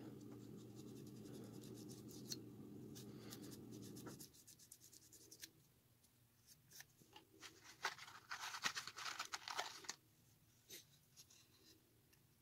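Light scratching and clicking of a thin wooden stick working wood glue into a split in a wooden handle, with a louder scratchy rubbing about eight to ten seconds in. A low steady hum underneath stops about four seconds in.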